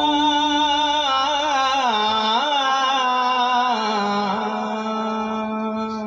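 Kirtan singer holding one long, wavering note of a Marathi devotional song, the pitch bending in ornaments, with no words sung.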